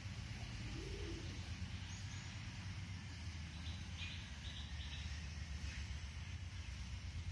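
Outdoor ambience: a bird chirps a quick series of short notes about four seconds in, over a steady insect-like hiss and a steady low rumble.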